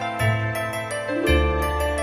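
Background music: a melodic track with a low bass note changing about once a second and short, bright high notes struck several times a second.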